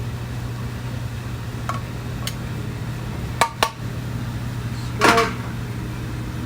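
Steady low hum of kitchen equipment, with a few clicks of serving utensils against a plate, two sharp ones close together about halfway through, and a brief scrape about five seconds in as pasta is plated.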